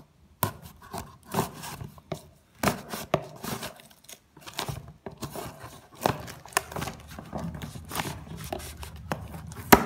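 Cardboard shipping box being handled and opened: rustling, scraping and tearing of the cardboard and packing tape, with irregular sharp clicks and knocks. The loudest is a sharp click near the end.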